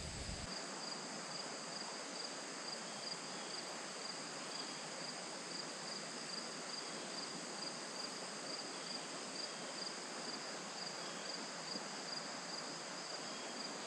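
Insects chirping in a steady chorus: a high, evenly pulsing trill with a fainter chirp repeating below it over a light hiss.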